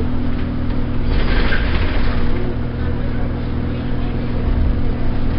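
Alexander Dennis Enviro200 single-deck bus heard from inside the saloon while moving: a steady engine and drivetrain hum with road noise. A brief swell of louder, hissier noise comes between one and two seconds in.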